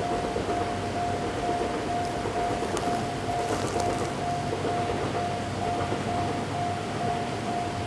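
Japanese railway level-crossing warning bell ringing, an electronic single-pitch tone repeating about twice a second, with a low steady hum underneath.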